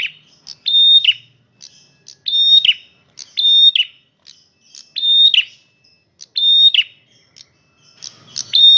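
Male prenjak merah songbird singing loudly. It repeats the same short phrase about once a second: a held high whistled note that falls away in a quick downward slur.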